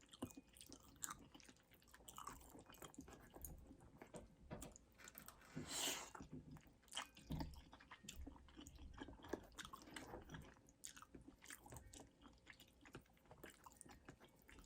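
A person quietly chewing and biting a meal of chicken Alfredo pasta: soft, wet mouth sounds and small irregular clicks, with one louder, longer noisy sound about six seconds in.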